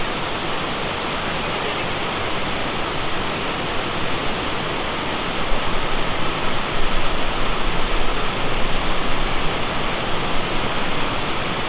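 Rushing water of Dudhsagar Falls: a steady, dense rush that grows a little louder and more uneven about halfway through.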